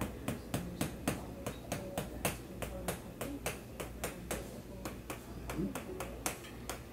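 Quick, sharp clicks of a handheld chiropractic adjusting instrument tapping along the neck, about four or five a second, slightly uneven.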